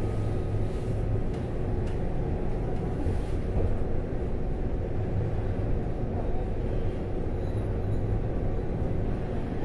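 Taiwan Railway EMU800 electric multiple unit running at speed, heard from inside the carriage as a steady low rumble of wheels on rail.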